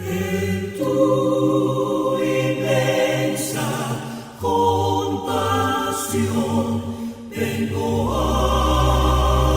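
Music: a choir singing a sacred piece, with a deep bass part coming in about eight seconds in.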